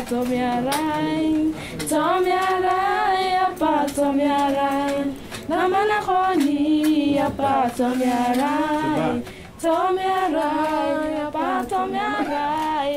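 Unaccompanied female singing: a slow melody sung in phrases of held and gliding notes, each a second or two long, with short breaths between.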